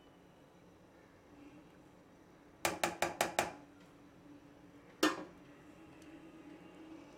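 A spatula knocked against the rim of a metal saucepan: five quick taps about two and a half seconds in, then one louder knock a second and a half later, each leaving a short ring from the pan.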